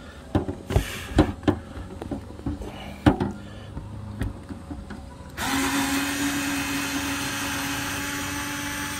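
A few clicks and knocks, then from about five seconds in a cordless power screwdriver runs steadily with a hum, backing out a small 1/4-inch screw from a vent-cover foot.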